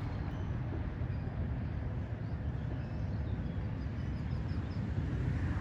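Steady low rumble of wind on the microphone over open water, with a faint run of short, high bird chirps about three to five seconds in.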